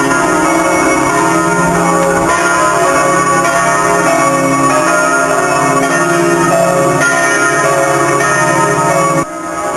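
Several church bells ringing together, their tones overlapping and ringing on in a dense, continuous peal. The level dips sharply for a moment near the end, then recovers.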